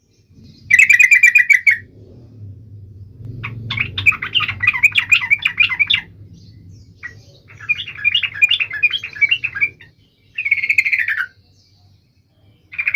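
Yellow-vented bulbul (trucuk) singing in loud, rapid, bubbling phrases of chattering notes. The phrases come in about five bursts, each one to two and a half seconds long, separated by short pauses. A faint low hum runs underneath.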